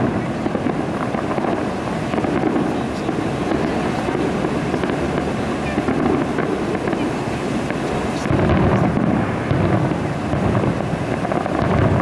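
Distant aerial fireworks shells bursting, heard as low rolling booms that swell and fade every few seconds over a steady rumble.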